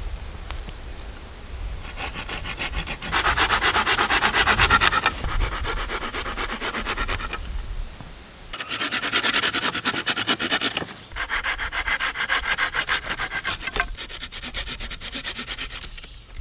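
A hand saw cutting through a wooden sapling pole, with fast back-and-forth strokes. It saws in two bouts, with a short pause about eight seconds in.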